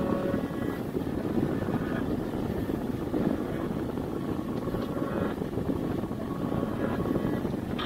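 Steady low rumble of a running car's cabin, an even noise with no music playing.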